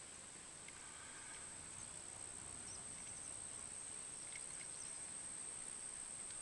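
Faint open-air ambience by a creek: a steady high-pitched whine with a few short, scattered high chirps over a low background hiss.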